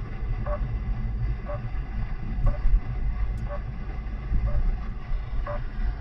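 Radio tracking receiver sounding the pulsing RF beacon of a stolen machine's theft tracker: one short beep about every second, over the steady low rumble of the car's road noise.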